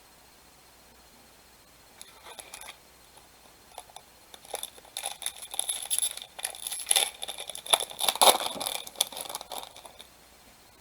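A trading-card pack's plastic wrapper being torn open and crinkled. It starts about two seconds in and runs as a string of quick rustles and sharp crinkles, loudest in the second half, stopping just before the end.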